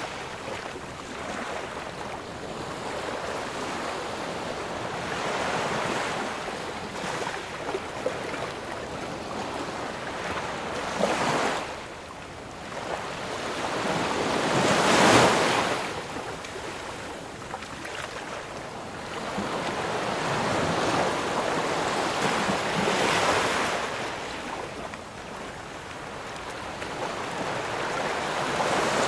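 Ocean waves breaking and washing on a shore, swelling and easing in slow surges every few seconds, the biggest about halfway through, with some wind.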